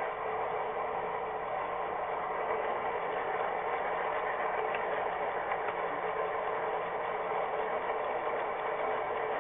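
HO-scale model train running: a steady mechanical whir of its motor and gears with the wheels rolling on the track, heard close up from a camera riding on the train.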